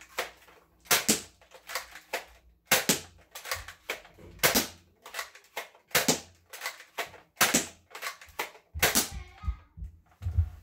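Nerf Elite foam-dart blaster being primed and fired over and over. A sharp plastic snap comes about every one and a half seconds, with smaller clicks of the priming action between the snaps.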